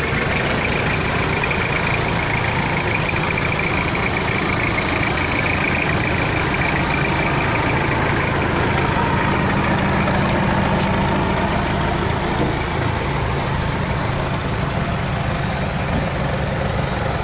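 Diesel engine of a lifted Toyota Hilux LN106 pickup running steadily as the truck crawls slowly away over dirt.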